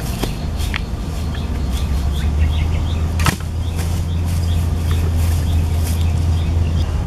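Steady low wind rumble on the microphone, with birds chirping in short high notes several times a second. One sharp knock about three seconds in.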